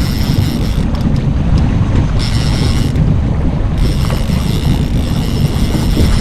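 Wind buffeting the microphone over the steady low rumble of a fishing boat under way on open water, with a fainter higher hiss that comes and goes.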